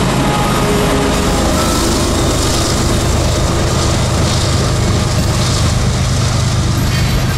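CSX freight train passing close by: a steady low diesel-locomotive hum under the continuous rumble and rush of open-top freight cars rolling over the rails.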